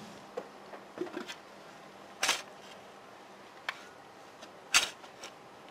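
A few short knocks and scrapes from a garden spade being picked up and handled on soil and paving, the loudest about two seconds in and another sharp one near the end.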